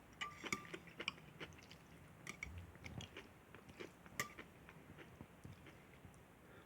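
Faint close chewing and crunching of kimchi and instant noodles: a scatter of small wet clicks and crunches from the mouth, thinning out over the last two seconds.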